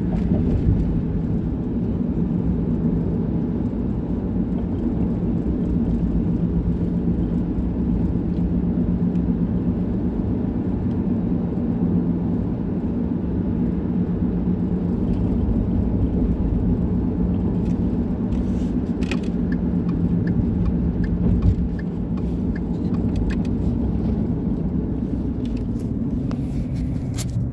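Steady low rumble of a car on the move, heard from inside the cabin, with a few faint light clicks in the last several seconds.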